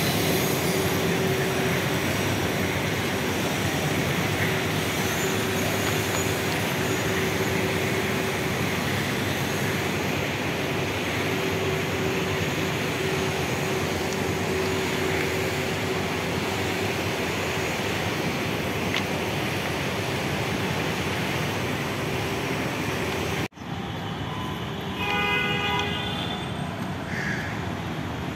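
Steady urban traffic noise with a faint steady hum. After a sudden cut near the end, a vehicle horn sounds briefly.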